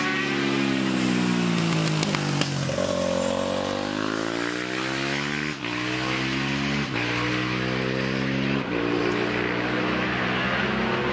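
Racing motorcycle engine held at high revs. The revs climb, then it changes up through the gears, with a short break and a drop in pitch at each of about three gear changes.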